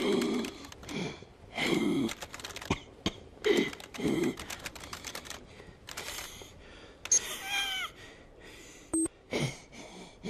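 Computer keyboard being typed on, keys clicking quickly throughout. It is broken by several louder rushing sounds and a short pitched warble about seven and a half seconds in.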